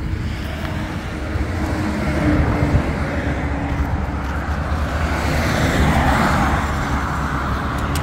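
Road traffic: vehicles going by on the road, one passing and swelling about five to seven seconds in, over a steady low rumble.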